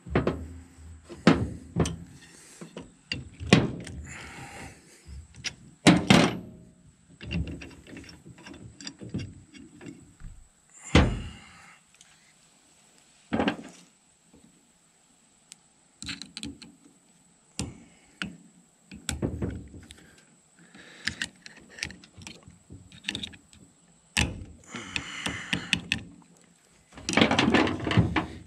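Irregular metal knocks, clanks and scrapes of parts and hand tools being handled during drive-shaft U-joint work, with quiet gaps between them and a busier clatter near the end.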